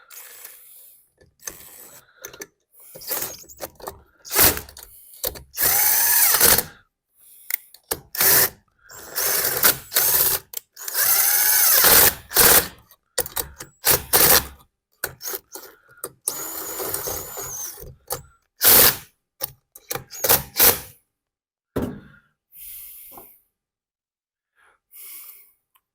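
Cordless drill-driver running in many short bursts, its motor whine rising as it spins up, driving in the screws that fasten the blower's muffler, with short clicks of parts in between.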